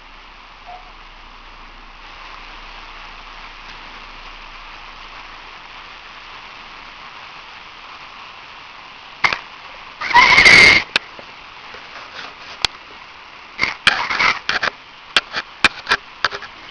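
A sleeping person snoring, heard over a phone line: steady line hiss, then about ten seconds in one short, harsh, loud snore, followed by a scatter of clicks and brief rasps.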